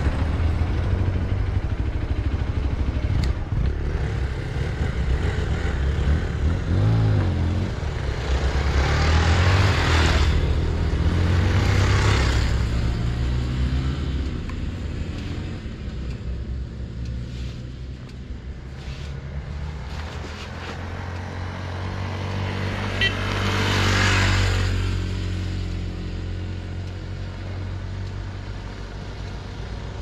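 Hero Xpulse 200 single-cylinder motorcycle engine running as the bike rides along a gravel dirt track, the revs rising and falling, with several louder surges of rushing noise.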